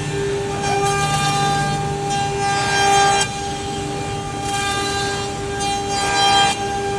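CNC router spindles whining steadily as the bits cut bamboo boards. Louder rasping surges of cutting come about two and a half seconds in and again near the end.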